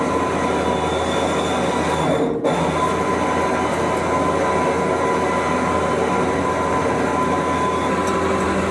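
Trailer winch running steadily under heavy load, winding in cable to drag a three-quarter-ton welding table on casters up onto a dump trailer. It is a continuous mechanical whine and grind with a brief drop about two and a half seconds in.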